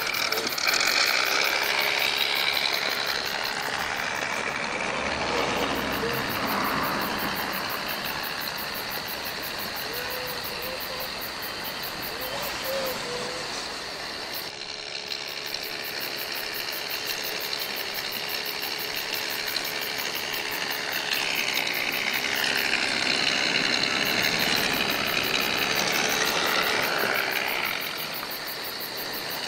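Engine sound module of a 1/10-scale RC Jeep Wrangler JK Rubicon playing a recorded engine through its small speaker, idling and rising with the throttle as the truck crawls. It is louder about a second in and again for several seconds near the end.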